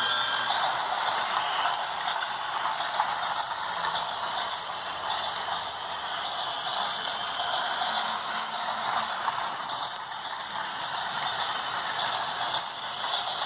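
Toy train running around its plastic track, a steady rattling clatter.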